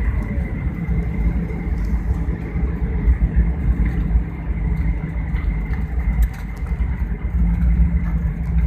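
Airliner cabin noise on the landing approach: steady engine drone and deep rumble, with a faint high whine.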